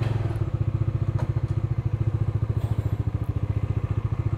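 Bajaj Dominar 400's single-cylinder engine idling steadily, an even, rapid beat of exhaust pulses, with its clutch plates freshly replaced.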